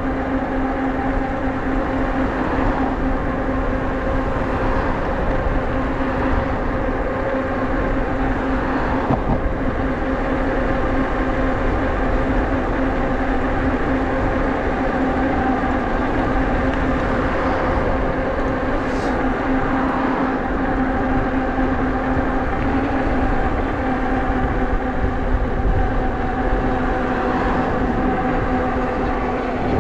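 Nakto F6 electric fat bike cruising at about 20 mph: a steady hum from its hub motor and fat tyres on asphalt, over low wind rumble on the microphone.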